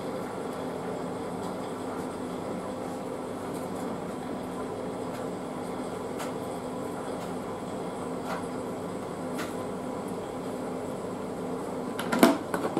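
A steady mechanical hum from a kitchen appliance runs throughout, with a few faint clicks as muffins are set into a plastic muffin carrier tray. About twelve seconds in, a loud hollow plastic knock and brief clatter as the carrier's clear plastic lid is picked up.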